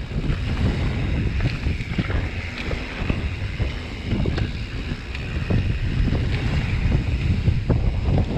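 Wind buffeting the microphone and mountain bike tyres rolling fast over dirt singletrack, with many small knocks and rattles as the bike goes over bumps.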